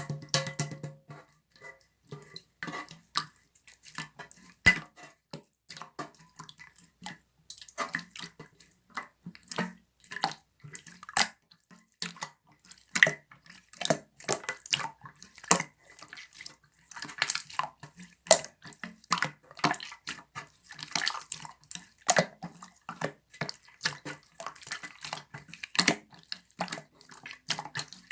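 Hands squeezing and stretching slime, giving many small, irregular wet clicks and pops.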